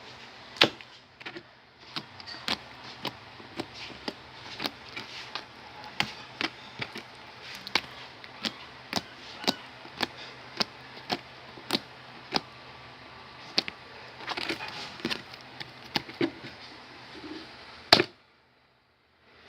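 Slime being pressed and worked by hand, giving sharp popping clicks at about two a second. A loud pop comes near the end, then the sound cuts off.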